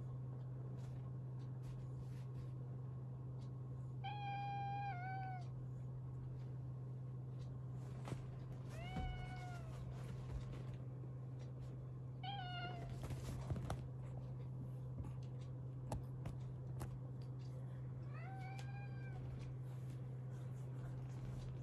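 Domestic cats meowing while play-fighting: four drawn-out calls about four, nine, twelve and eighteen seconds in, some rising then falling in pitch, with a few scattered knocks. A steady low hum runs underneath.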